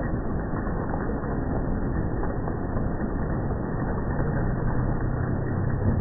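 Hailstorm in slowed-down playback: a dense, steady clatter of hailstones and rain, pitched low and dull. A low hum joins it about four seconds in.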